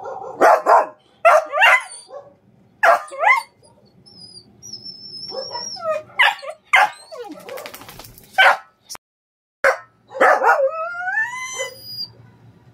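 A small dog barking in short, loud yips, about ten of them in uneven bunches, ending in a longer whining howl that bends in pitch about ten seconds in.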